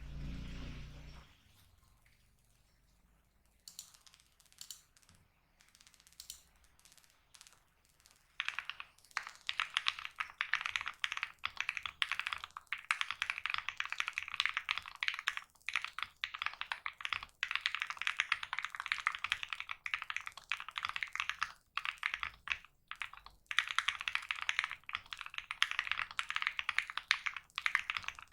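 Mechanical keyboard with Krytox 205g0-lubed Ink linear switches on a polycarbonate plate being typed on: a few scattered keystrokes at first, then fast continuous typing from about a third of the way in, with two short pauses.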